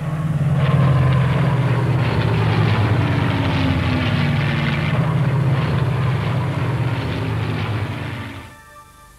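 Polikarpov Po-2 biplane's radial engine droning in flight as the plane passes overhead, its pitch falling slowly. It fades out near the end.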